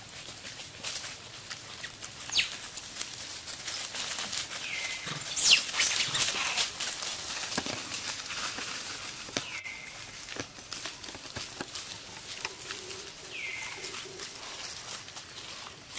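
Dry leaf litter rustling and crackling as monkeys move about in it, in many short irregular crackles, the loudest about five seconds in. A short falling call recurs about every four seconds.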